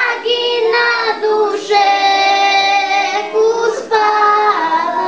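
A young girl singing solo into a microphone, holding long sustained notes, with a group of children singing along behind her.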